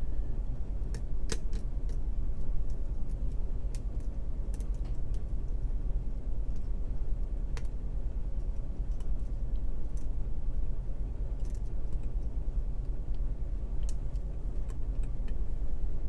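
Lock pick and tension wrench working the pins of a pin-tumbler challenge lock during single-pin picking: light, irregular metallic clicks and ticks, over a steady low hum.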